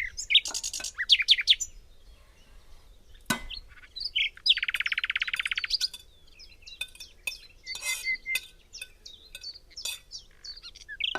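Small birds chirping in quick short calls, with one rapid trill lasting about a second and a half a little before the middle. A single sharp knock about three seconds in.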